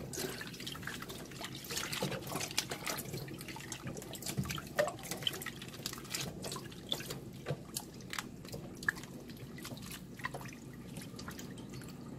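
Hands squeezing and swishing water-softened dried pumpkin strips in a stainless steel bowl of water, with a steady run of small splashes and drips.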